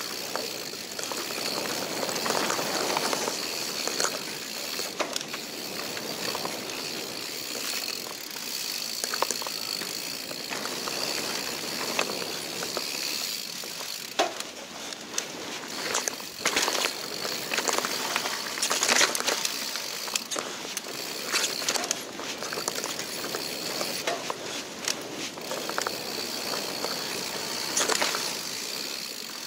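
Mountain bike rolling fast down a dirt singletrack: steady tyre noise on the dirt, with the bike rattling and clacking sharply over roots and bumps many times along the way.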